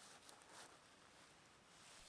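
Near silence: faint steady hiss with a few soft rustles.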